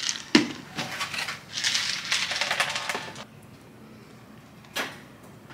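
Snack packaging being handled: a few sharp clicks and taps, then about a second and a half of dry crackling rustle, and one more click near the end.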